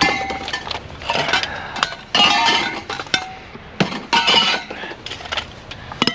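Pieces of scrap metal clanking and ringing against each other as they are handled, several separate clinks with the loudest about two seconds in and another cluster about four seconds in.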